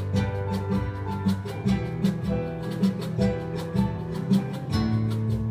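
Live band playing an instrumental passage: strummed acoustic guitar over sustained electric bass notes, with a steady percussive beat.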